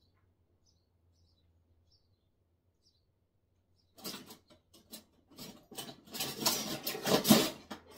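Faint bird chirps for the first few seconds. About halfway in, an irregular run of kitchen clatter and scraping begins as a bowl and spatula are handled, loudest near the end.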